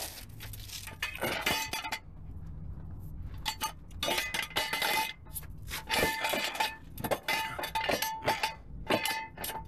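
Steel ratchet-type jack stand being set under a car: a string of sharp metallic clicks and clinks as its ratchet bar is pulled up and the stand is positioned, some ringing briefly, coming thickest in the second half.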